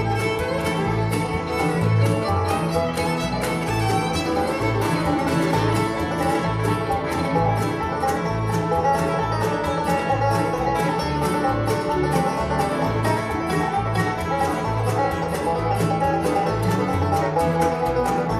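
Bluegrass band playing live through an instrumental break: banjo, fiddle, mandolin, acoustic guitar and upright bass, with the bass keeping a steady beat under fast picking.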